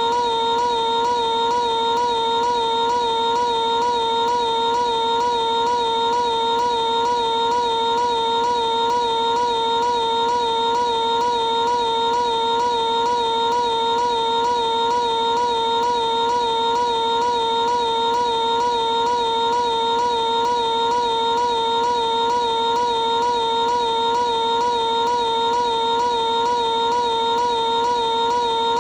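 Piglet's cartoon scream, looped and stretched into one unbroken, steady held note with a slight rapid waver.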